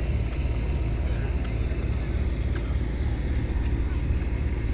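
Wind buffeting the microphone: a steady, fluttering low rumble over the hiss of open air, with a few faint ticks.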